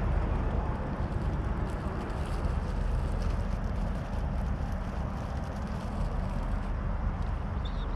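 Wind buffeting the microphone: a steady low rumble with no clear tone. A short high chirp sounds once near the end.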